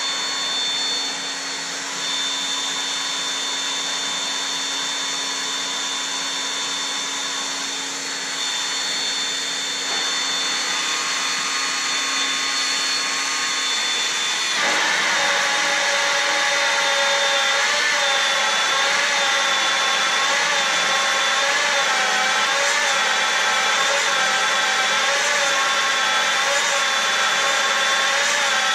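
Magnetic drill boring into a steel plate. The motor runs steadily at first; about halfway through it grows louder and its pitch wavers up and down as the cutter works under load.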